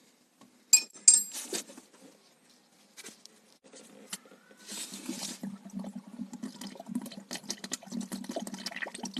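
A few metallic clinks as a bleed screw on a car's cooling system is opened, then a short hiss and coolant gurgling and trickling out of the bleed port as trapped air is purged after a coolant refill.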